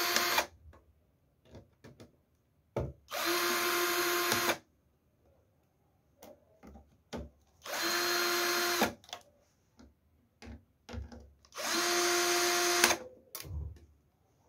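Cordless drill/driver backing out the screws of a battery's fuse cover plate. It runs at a steady speed in short spurts of about a second each: one ends just after the start, then three more follow about four seconds apart. Small clicks and taps of handling come in between.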